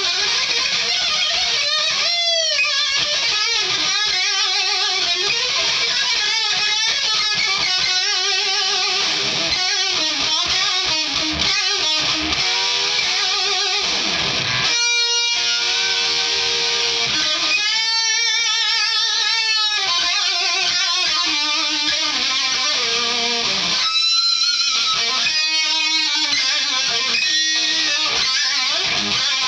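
Distorted, bluesy metal electric guitar solo on a Stratocaster-style guitar through a Mesa amplifier, with string bends and wide vibrato on held notes.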